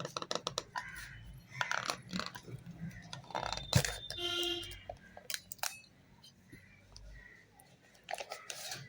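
Clicks, taps and clinks from handling a wristwatch and its box, with a sharper knock about four seconds in, followed by a brief pitched sound.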